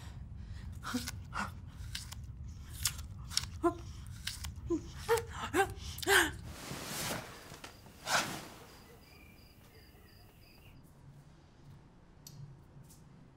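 Crisp bites and crunchy chewing of a raw green apple, a quick series of sharp crunches that stops about eight seconds in.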